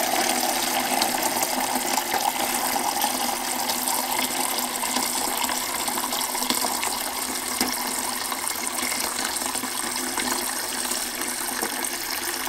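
A thin stream of water from a kitchen tap running steadily into a plastic measuring jug, splashing into the rising salt water as it fills.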